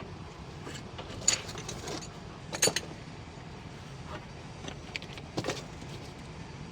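A few sharp metallic clinks and knocks of tools and parts being handled during truck transmission work, the loudest a quick double knock about two and a half seconds in, over a steady low background rumble.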